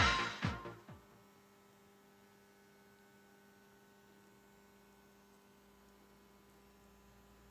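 Electronic dance music dies away within the first second, leaving near silence with a faint, steady electrical hum.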